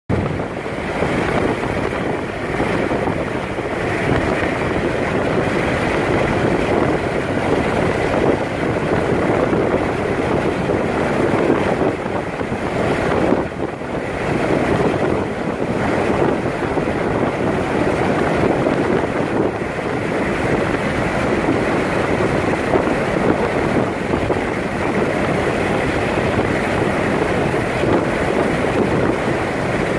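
Steady rushing noise of wind blowing over the microphone, unbroken, with a brief lull about halfway through.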